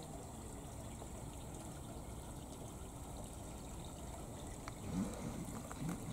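Spring water trickling steadily where it runs out into a small stream, with two brief soft thumps near the end.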